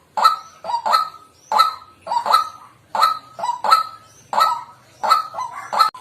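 White-breasted waterhen calling: a steady series of short, harsh 'kwak' notes, about two a second.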